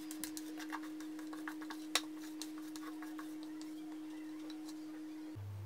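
Silicone spatula scraping and tapping against a plastic mixing bowl as thick cake batter is scraped out into a tin: faint scattered light clicks, with one sharper tap about two seconds in. A steady low hum sits underneath and gives way to a deeper hum near the end.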